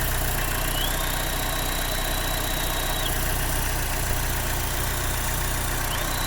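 Chevy Cruze engine idling steadily during a PCV vacuum-leak test, with the owner taking the internal PCV valve to be faulty. A high whistle rises in pitch and holds for about two seconds, then stops, and starts again near the end.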